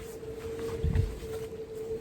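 Strong wind buffeting the microphone in low rumbling gusts, strongest about a second in, over a steady unbroken tone.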